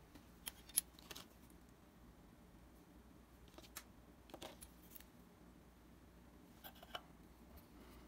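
A handful of light, sharp clicks and taps, scattered irregularly, of small parts being handled; the loudest comes just under a second in. Otherwise quiet room tone.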